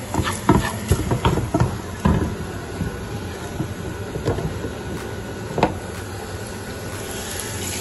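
Shallots, curry leaves and dried red chillies sizzling in hot coconut oil in a saucepan, a steady hiss. A wooden spoon stirs and knocks against the pan several times in the first couple of seconds, with a couple of single clicks later.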